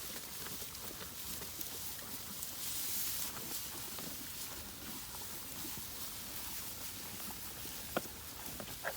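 Cattle eating hay: a steady crackling of hay being pulled and chewed, with a sharp click about eight seconds in.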